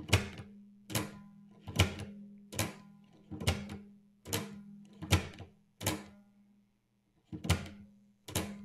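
Metal mechanism of a Sony OA-D34V 400k floppy drive being worked by hand after greasing: about ten sharp metallic clacks, roughly one a second with a pause before the last two, each with a brief ring over a low steady hum.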